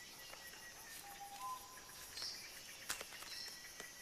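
Faint woodland ambience of insects trilling steadily, with a short bird whistle about a second in, a brief high chirp a little after two seconds and a single sharp tick near three seconds.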